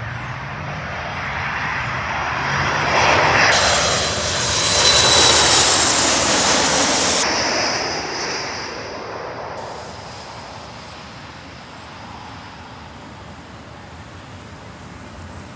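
A Boeing 737 jetliner on landing approach passes low overhead with its gear down. Its jet engines grow loud, with a high steady whine and a pitch that falls as it passes, then fade to a lower rumble.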